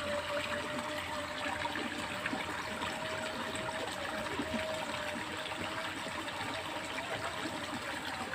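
Water running and trickling in a small irrigation ditch, a steady even flow, with a faint steady tone running through it.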